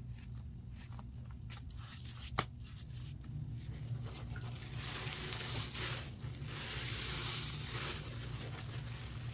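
A quiet stretch with a sharp click about two seconds in, then, from about four seconds in, a steady hiss of tap water running into a sink while a soapy kitchen sponge is rinsed and squeezed under it.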